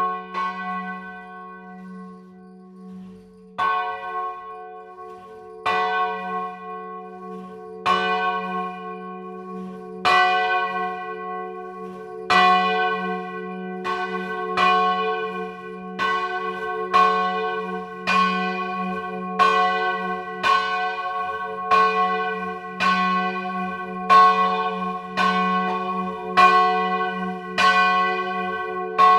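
A single church bell being swung, its clapper striking at first about every two seconds and then about once a second as the swing builds, each stroke ringing on over a steady hum.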